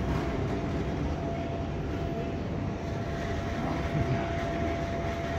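Steady low rumble and hum of a London Underground platform, with a faint constant whine.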